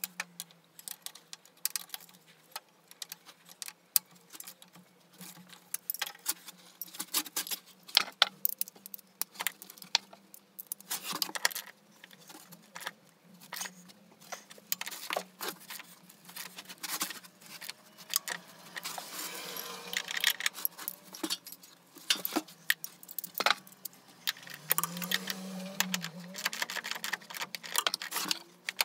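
Irregular clicking and light clinking of small hard objects being handled, many sharp knocks at uneven intervals.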